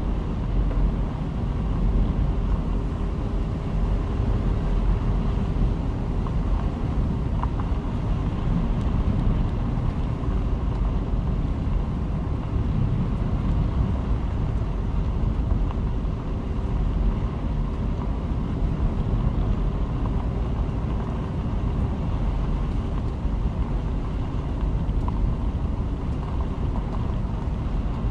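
Steady low rumble of a car on the move: road, tyre and engine noise, with no change in pace.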